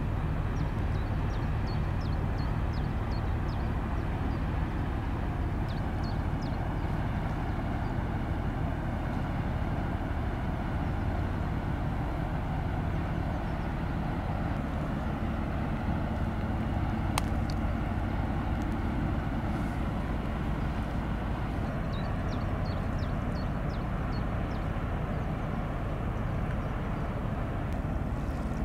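Steady low drone of a large motor yacht's engines as the ship passes, an even hum and rumble that holds level throughout. Runs of short high chirps come and go above it, and there is a single sharp click about 17 seconds in.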